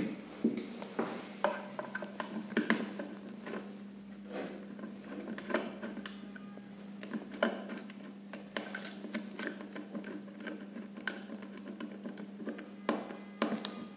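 Scattered small clicks and taps of hands working on a plastic power-supply module, feeding the mains wires into its screw terminals and tightening them down, over a steady low hum.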